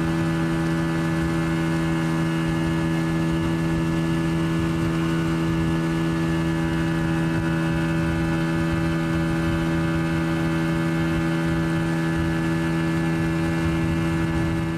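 Boat engine running at a constant speed: a steady, unchanging drone with a low rumble underneath.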